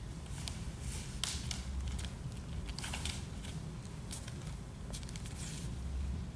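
Bare feet stepping, pivoting and sliding on a glossy wood floor: scattered short scuffs and skin squeaks, a few sharper ones about a second in and around three seconds, over a steady low hum.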